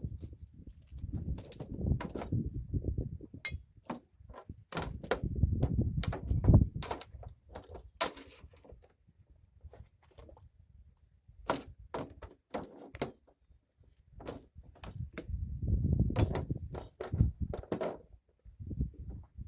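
Metal hand tools clinking and clattering as they are handled and lifted out of a toolbox: irregular sharp clinks and knocks over low rumbling handling noise.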